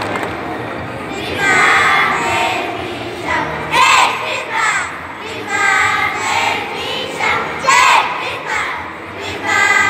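A group of children singing together in chorus, in phrases of about a second each.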